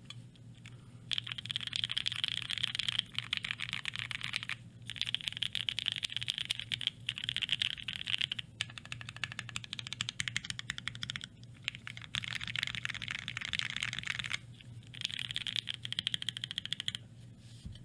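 Fast typing on a mechanical keyboard with Gateron Black Ink linear switches and their lower-pitched thock. Runs of rapid keystrokes are broken by short pauses every few seconds.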